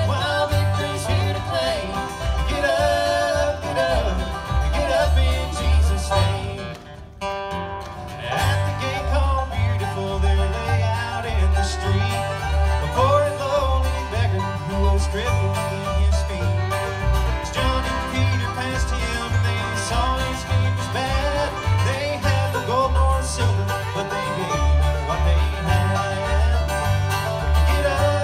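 Live bluegrass band playing: banjo, fiddle, acoustic guitar and upright bass, with the bass keeping a steady beat. The music drops away briefly about seven seconds in, then carries on.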